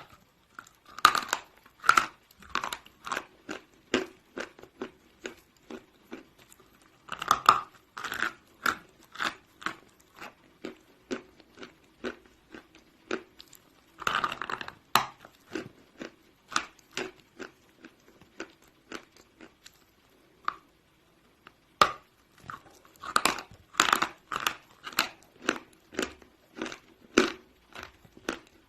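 A person eating blocks of chalk: four bouts of loud crunching bites, each followed by a run of steady chewing at about two chews a second.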